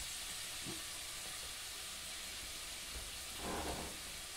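Crab rangoons frying in oil at about 350°F, a steady faint sizzle. A brief low sound rises over it about three and a half seconds in.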